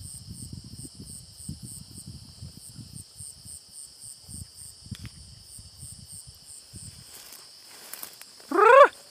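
Night insects (crickets) chirping steadily, with a high pulsing trill about four times a second, over rustling and crunching footsteps through brush. Near the end comes one short, loud cry that rises in pitch.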